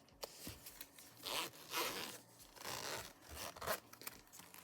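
Zipper on a zip folio wallet cover being pulled along in about four short raspy strokes.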